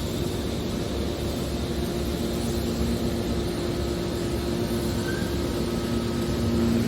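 Metal shear baler running, a steady machine drone with a constant low hum.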